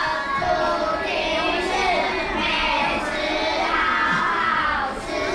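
Young children singing a song together in a classroom.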